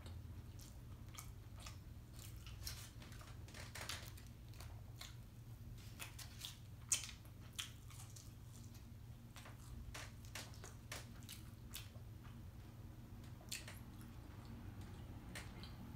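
A person chewing a burger with her mouth close to the microphone: faint, scattered wet clicks and smacks of chewing and finger-licking, the loudest about seven seconds in, over a low steady hum.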